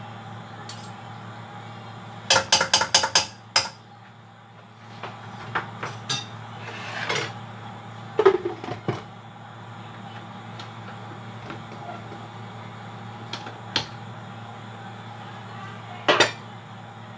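Cookware clatter: a quick run of about six metal knocks, then scattered clinks, a ringing clank as a glass lid is set onto the wok about eight seconds in, and a metal bowl clanking near the end, all over a steady low hum.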